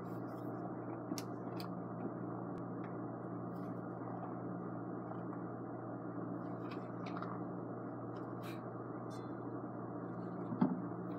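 Steady low background hum with a few faint scattered clicks.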